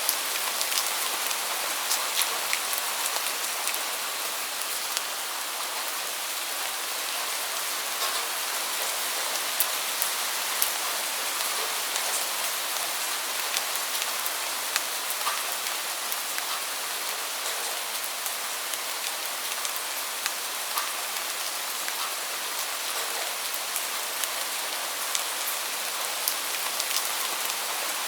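Steady rain falling: a dense, even hiss with scattered sharper hits of individual drops.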